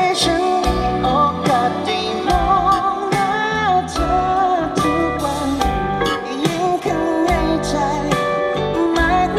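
Live pop band playing a song, with a sung lead vocal over guitar and a steady drum beat.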